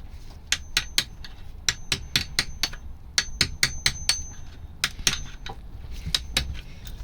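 Quick series of sharp metallic clicks and taps, a few a second in clusters, with a faint high ring after some of them. It comes from a hand tool chipping old sealant off the Honda ST1100 engine's clutch housing.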